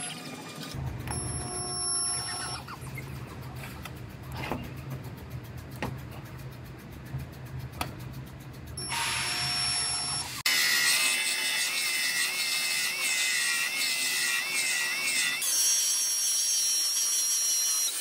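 Background music over resistance spot welding, with a steady low electrical buzz for the first ten seconds or so that cuts off abruptly, and a few sharp clicks.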